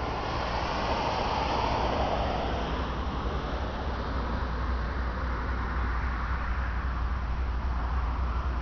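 Outdoor road and rail rumble: the noise of road traffic and a distant approaching diesel freight train, swelling about one to two seconds in and then easing, over a low steady rumble.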